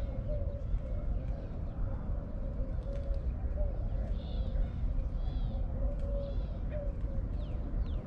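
Birds calling: short, repeated low dove coos mixed with higher chirps from small birds, over a steady low rumble.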